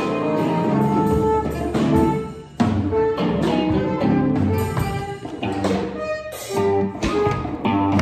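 Free-improvised ensemble music: saxophone and guitar playing overlapping, wandering lines over drums and percussion. The sound drops away briefly and comes back in with a sharp hit about two and a half seconds in.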